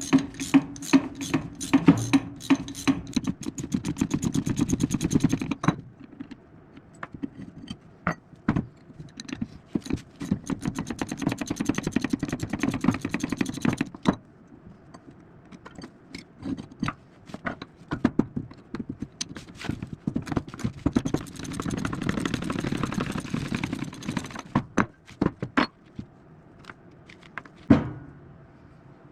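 Hand ratchet wrench clicking in three quick spells, the clicks speeding up as it spins, with scattered clinks and knocks of metal tools and parts between. These are the bolts being backed out of an old hydraulic lift cylinder during teardown.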